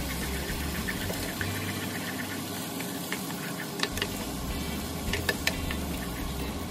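Beaten egg and diced vegetables sizzling in a nonstick frying pan as a wooden spatula stirs and scrapes through them, with a few sharp clicks of the spatula against the pan about four and five seconds in. A steady low hum runs underneath.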